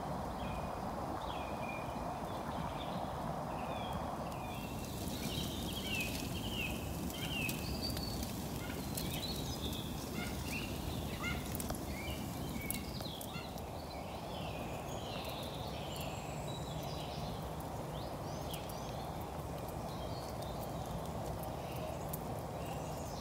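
Small birds chirping and calling in a dawn chorus, with a wood fire crackling from about five seconds in.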